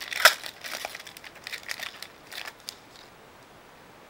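Trading-card pack wrapper being crinkled and torn open: a quick run of sharp crackles, loudest near the start, stopping about three seconds in.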